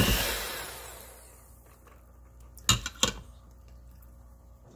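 Electric hand mixer running in a pot of cooked chicken breast, shredding it, then fading out over about a second and a half as it is switched off. About two and a half seconds later there are two sharp knocks a third of a second apart.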